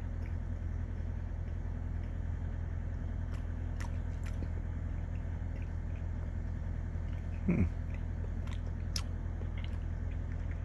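A person chewing a piece of chocolate, with a few soft mouth clicks and one short falling hum of the voice about seven and a half seconds in, over a steady low hum.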